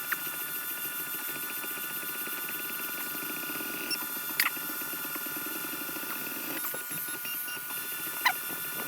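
XVICO X3S 3D printer running a print, its stepper motors giving steady tones with a fast fine chatter as the print head moves. A few sharp ticks come through, about four and a half seconds in and again near the end.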